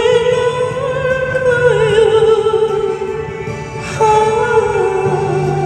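A woman singing a slow Korean ballad over acoustic guitar, holding long notes with vibrato, with a new phrase starting about four seconds in.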